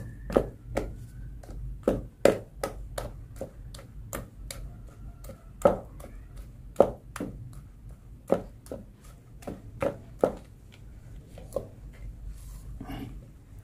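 Flat spatula slapping and beating thick martabak batter in a plastic tub, an irregular run of sharp wet slaps and knocks, about two or three a second. The batter is being beaten until smooth and elastic.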